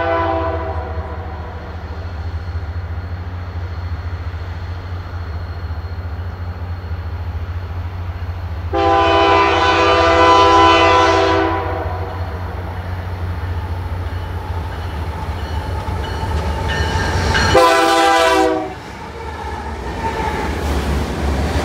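CPKC freight train's diesel locomotive horn sounding three times: a blast ending about half a second in, a long blast of about three seconds near the middle, and a short blast near the end. Under the horn is the steady low rumble of the approaching locomotives. In the last few seconds the rush and rattle of freight cars rolling by takes over.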